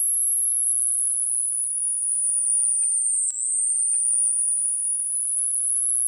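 A single high-pitched electronic tone, a thin whine that slides slowly down in pitch, breaks with a brief click about three seconds in, then slides back up.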